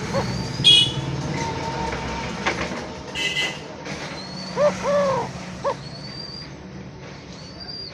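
Eurasian collared dove cooing its three-note call, short-long-short: the last note of one phrase at the very start, then a full phrase about four and a half seconds in. Other small birds chirp and whistle high up, over a steady low background hum.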